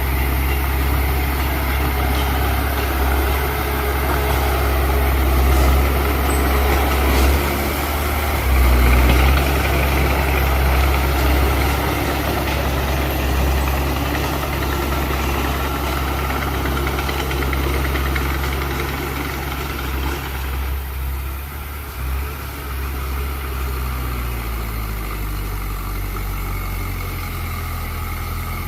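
Heavy diesel engine of earthmoving machinery running steadily, its note and load shifting about two-thirds of the way through.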